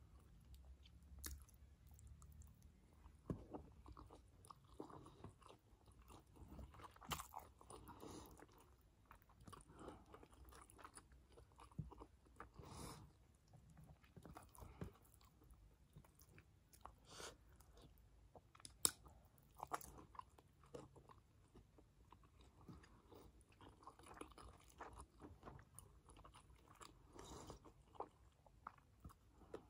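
Faint close-up chewing of steamed chicken momos: wet mouth and lip sounds with scattered sharp clicks, one stronger click about two-thirds of the way through.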